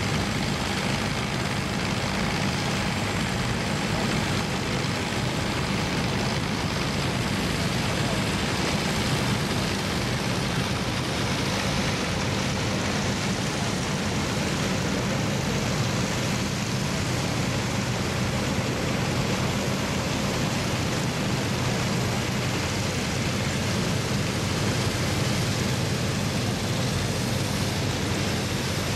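Vintage Allis-Chalmers tractors pulling pull-type combines while harvesting grain: a steady engine drone under the even noise of the threshing machinery.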